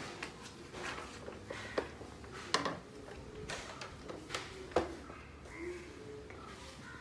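Hard plastic clicks and knocks as the soda maker's plastic front cover is pushed and snapped onto its body over the CO2 cylinder. There are about five sharp clicks, the loudest about two and a half seconds in and just before five seconds.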